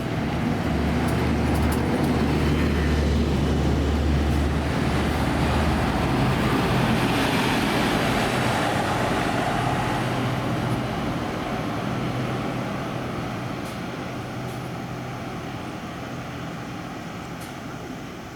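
Buses driving past: a low diesel engine drone, strongest in the first few seconds, with road noise. It fades away over the last several seconds.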